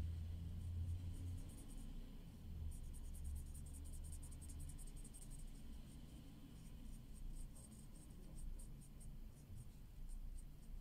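Black marker pen tip scratching on paper in quick short strokes as it fills in a small shape. The strokes come fast and close together a few seconds in, then slow and space out toward the end, over a faint low hum in the first half.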